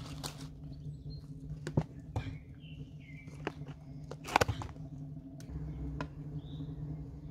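Hands handling a cardboard tea box and a brass teapot: scattered clicks and taps, the loudest a sharp knock about four seconds in, over a steady low hum. A few faint bird chirps.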